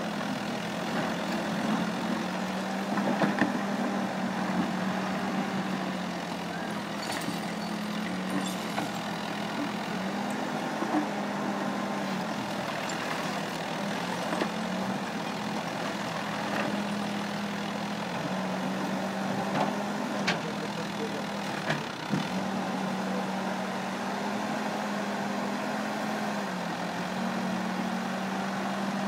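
Diesel engine of an L&T Case backhoe loader running steadily, its pitch stepping slightly up and down as the backhoe arm digs. A few sharp clunks of the bucket striking broken brick and soil are heard over it.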